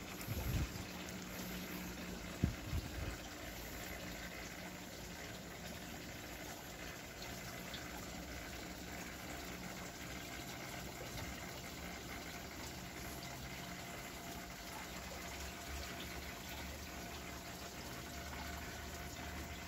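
Steady low rushing noise, like distant running water, with a few soft bumps in the first three seconds.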